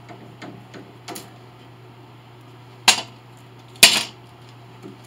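Metal bar clamps being loosened and taken off a glued veneer repair: a few light clicks, then two sharp metal clanks about a second apart.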